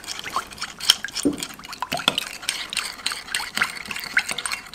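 A stainless-steel measuring spoon stirring a thin soy-sauce marinade in a glass bowl, clinking against the glass again and again.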